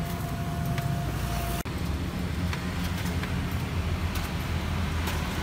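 Steady low rumble of passing road traffic, with a few light taps and clicks. A faint steady whine in the first second and a half stops at a sudden cut.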